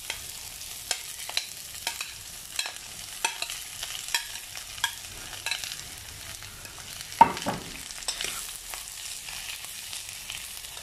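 Chopped onions frying in hot coconut oil with a steady sizzle, while a steel spoon stirs them, knocking and scraping against the pan about once or twice a second. A louder clank about seven seconds in.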